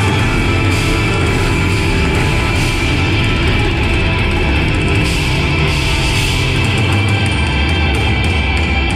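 Live progressive rock band playing loud and steady, with electric guitars, drum kit and violin.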